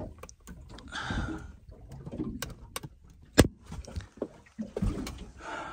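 Scattered clicks and knocks as a stainless steel portable pie-warmer oven is handled and its door latch fastened; the sharpest click comes about three and a half seconds in.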